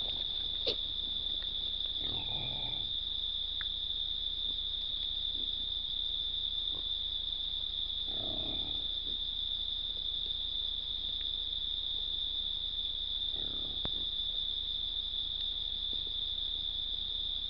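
Crickets trilling in one steady, unbroken high-pitched note. Three faint, short, unidentified noises come through about two, eight and thirteen seconds in.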